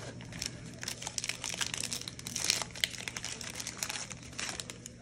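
Plastic trading-card pack wrapper crinkling in the hands as it is torn open. It makes a dense run of sharp crackles, loudest a little past halfway.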